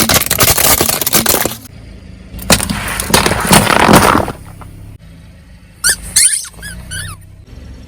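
Car tyre crushing crunchy objects: two loud stretches of dense crackling and cracking, the first at the start and the second a couple of seconds later, followed by a few short rising squeaks.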